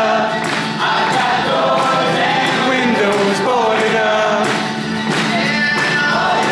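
A live rock band's members singing together in harmony, several male voices in unison and parts, over a strummed acoustic guitar and a drum struck about once a second.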